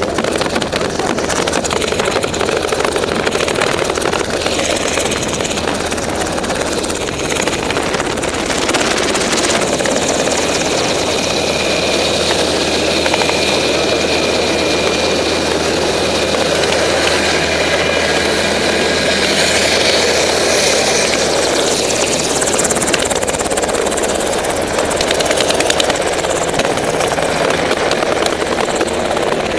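Black Hawk helicopter running close by on the ground, its rotor and turbine noise loud and steady with a faint high whine, while the rotor wash blows across the microphone.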